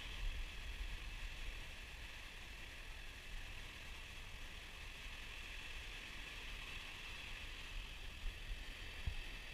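Seaside ambience dominated by wind buffeting the microphone as a low fluttering rumble, over a steady high hiss, with a couple of soft bumps near the end.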